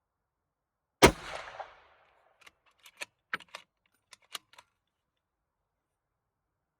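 A single shot from a bolt-action Ruger Precision Rifle in .308 Winchester about a second in, with a short echoing tail. It is followed by a run of sharp metallic clicks as the bolt is worked to eject the spent case and chamber the next round.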